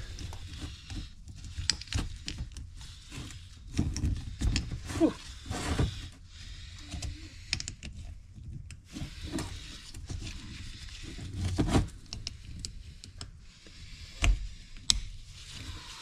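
Handling noise as gloved hands press a heated hard lip seal into a steel hydraulic cylinder gland: irregular rubbing and rustling with light taps and clicks. There is a brief squeak about five seconds in and two sharper knocks near the end.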